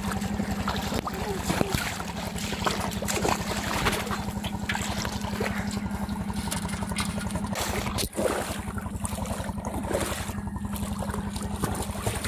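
An engine running steadily with a low, pulsing drone, dropping out for a moment about eight seconds in, with light splashing of water now and then.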